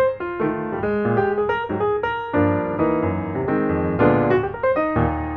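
Background music: a piano playing a continuous run of notes.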